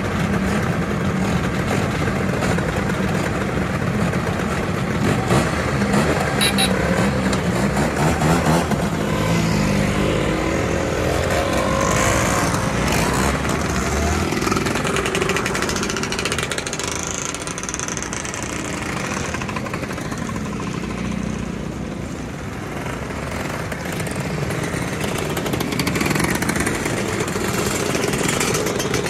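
A line of motor scooters riding past one after another, their small engines running and revving, with pitch rising and falling as each one goes by.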